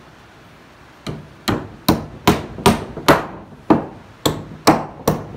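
Hammer nailing wooden deck boards onto a stall wall: a steady run of sharp blows, about two and a half a second, starting about a second in, with a brief pause midway.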